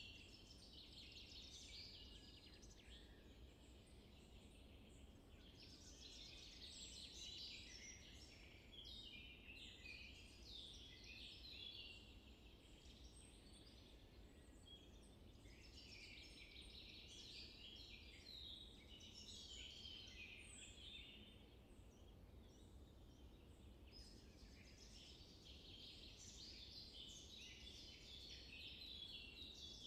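Faint chorus of small birds chirping and twittering in bouts of several seconds, with short lulls between, over a steady low background rumble.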